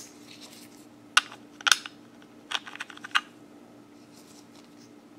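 Small metal screwdriver bits clicking and clattering as they are handled and sorted in a bit set: a few sharp clicks about a second in, then a short cluster between two and a half and three seconds in, over a faint steady hum.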